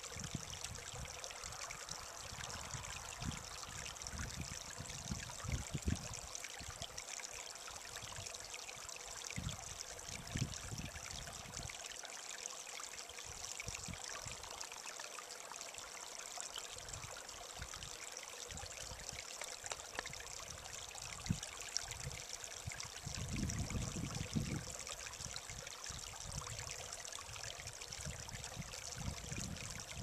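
Small spring-fed stream trickling and spilling over rocks and moss, a steady water sound, with occasional low rumbles.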